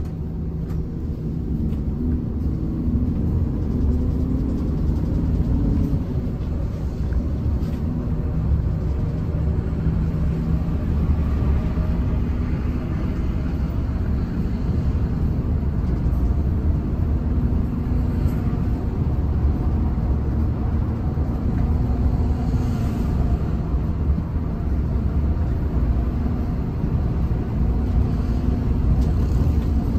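Coach bus engine and road noise heard from inside the cabin: a steady low rumble.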